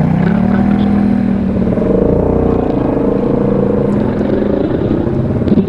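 ATV engine pulling uphill under load: the engine note rises at the start, holds steady, then climbs again around two seconds in, with a few knocks near the end.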